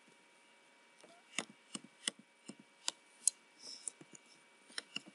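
Computer keyboard keys pressed in a quick, irregular series of about a dozen clicks, starting about a second in.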